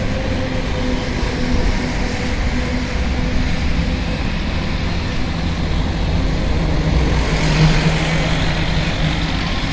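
Road traffic heard on the move along a city road: a steady rumble of vehicles and road noise. A low engine hum swells about three-quarters of the way through as a truck comes close.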